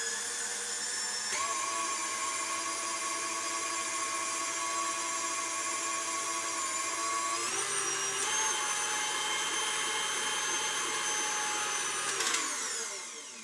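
KitchenAid tilt-head stand mixer running, its motor whining steadily as it beats cheesecake filling. It steps up in speed about a second in and again about halfway through. Near the end it is switched off and winds down.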